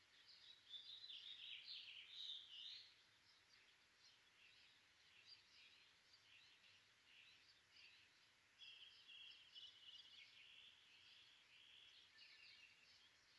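Faint birds chirping, busiest in the first three seconds, with a rapid, even trill of repeated notes from about nine to eleven seconds in.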